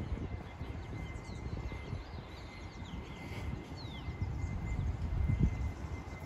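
Footsteps on a paved path with low rumbling wind on the microphone, and small birds chirping faintly in the background.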